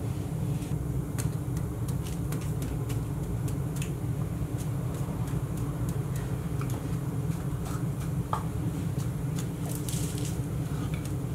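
A sand casting mold being broken open just after an aluminium pour: the wooden flask is lifted away and the hot, steaming sand crumbles. Scattered crackles and sharp clicks come over a steady low rumble.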